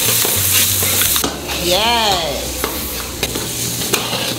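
Oxtail and chopped onion sizzling in a hot wok while a metal spoon stirs them, scraping and clicking against the pan. About two seconds in there is a short squeal that rises and falls in pitch.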